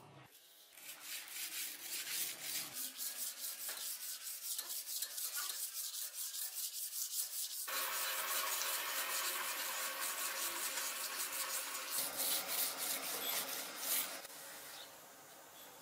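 Sandpaper rubbed by hand along a sword blade in quick back-and-forth strokes, a few a second. The strokes grow louder and denser about eight seconds in and stop near the end.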